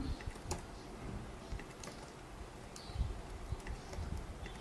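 A handful of separate clicks from a computer keyboard and mouse, spaced a second or so apart.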